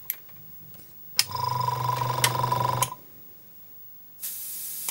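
Iwata Smart Jet Pro oil-less single-piston compressor switching off with a click, starting again with a click about a second in, running with a steady hum for a second and a half, then cutting out again. This on-off switching is its automatic on/off control. A steady hiss of air starts near the end.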